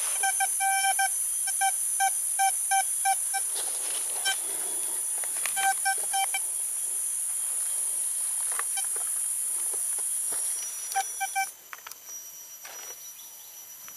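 Vista Gold metal detector giving short beeps on one mid-pitched tone, about three a second through the first three seconds, then in shorter runs around six and eleven seconds: the target signal over buried metal. A steady high insect drone runs behind it and cuts off about two seconds before the end.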